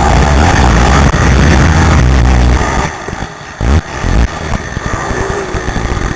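Racing quad (ATV) engine running hard, heard close up from the rider's helmet. Just after the middle the engine sound drops away for under a second, as when the throttle is chopped, then comes back and runs at lower throttle.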